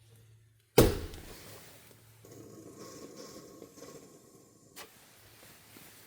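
A sharp clunk about a second in, then a few seconds of scraping and rubbing that stops abruptly, as a gas furnace's condensate drain parts are handled and checked for a blockage.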